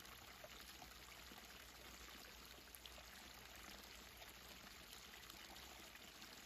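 Faint, steady babbling water, like a small stream running.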